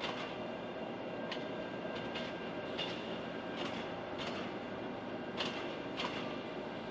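A train rolling past, the hauled cars of a KORAIL Line 4 electric multiple unit, with a steady rumble. Sharp wheel clacks come every second or so, often in pairs.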